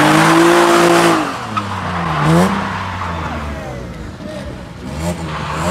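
A car engine revving hard with tyre squeal, as in drifting. The engine note dips and climbs again about two seconds in, then runs on more quietly with the revs rising and falling.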